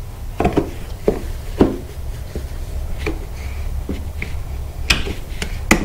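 Hands working a wet vinyl decal onto a plastic ATV side panel with a paper towel and a plastic squeegee: irregular light taps, rubs and rustles, with two sharper clicks near the end, over a steady low hum.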